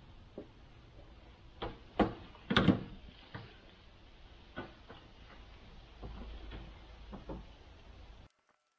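Scattered knocks and clunks of a wooden 2x4 rafter being handled, with footsteps on a metal stepladder as it is carried up to the roof frame; the loudest knocks come about two seconds in. The sound cuts off suddenly near the end.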